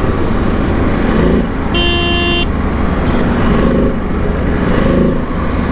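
Ducati DesertX Rally's 937 cc L-twin engine running, with steady road and wind rumble. A vehicle horn honks once for about half a second, about two seconds in.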